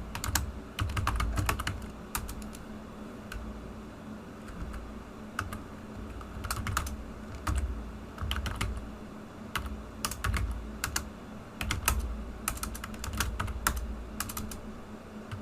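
Typing on a computer keyboard in irregular bursts of clicking keystrokes, with a faint steady hum underneath.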